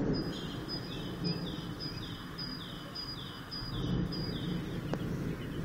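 A songbird repeats a short two-note phrase, a high note followed by a falling note, about eight times at nearly two a second, then stops. A low, steady rumble runs underneath.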